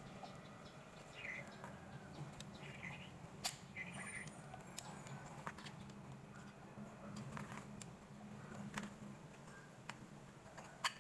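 Screwdriver clicking and scraping against the metal housing of a car radiator fan motor while its end-cap screws are undone: scattered light clicks, two of them sharper, about 3.5 s in and near the end, over a low steady hum. A few short high chirps sound in the first four seconds.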